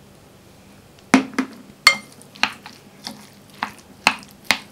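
A utensil knocking against a glass bowl while stirring mayonnaise into a chunky potato salad: after a quiet first second, a string of short sharp clicks, about two a second, one with a brief glassy ring.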